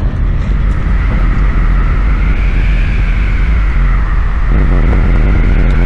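Loud, steady low rumble of a nuclear explosion sound effect.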